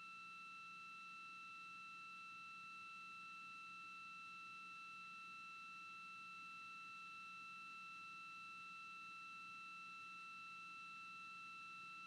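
Near silence, with a faint steady high-pitched tone of several pitches held together and a faint low hum beneath it.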